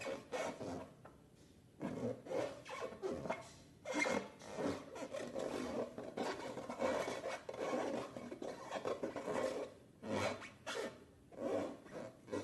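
Rubber balloons being rubbed and squeezed by hand: irregular rasping, rubbing strokes, with a short lull about a second in.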